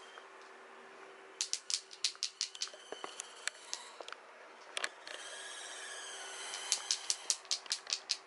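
Quick irregular clicking and tapping of a kitten's claws and a toy mouse knocking against a laminate floor as it plays, in two bursts with a scuffling rustle between them.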